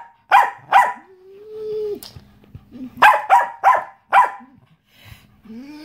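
A small terrier play-barking: two sharp barks, a short whine, then four more barks in quick succession.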